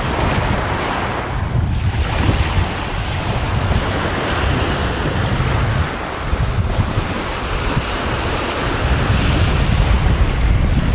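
Small waves breaking and washing up on a sandy beach, with wind buffeting the microphone in a steady low rumble.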